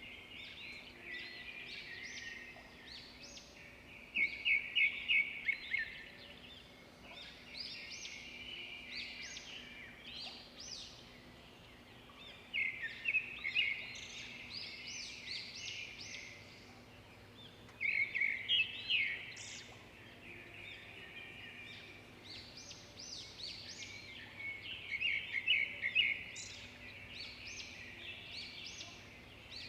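Small birds chirping and trilling in repeated high-pitched phrases, with louder quick trills coming in bursts about four times.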